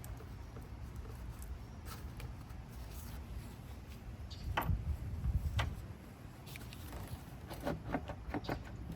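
Hand tools working on nuts under the hood: scattered light clicks and knocks of metal, a few around the middle and a quick run of them near the end, over a low steady rumble.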